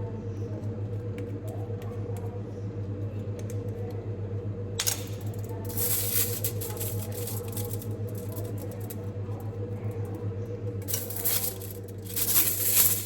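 Homemade slime being worked by hand and scraped off plastic spoons, giving wet crackling, clicking squishes in two spells, about five seconds in and again near the end, over a steady low hum.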